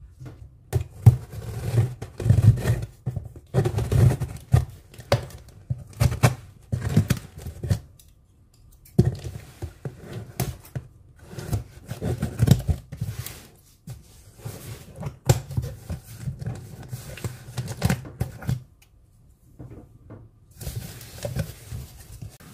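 Scissors cutting through packing tape and corrugated cardboard along the top of a shipping box, in irregular snips and scrapes with tearing, pausing briefly twice, with the cardboard flaps handled as it is opened.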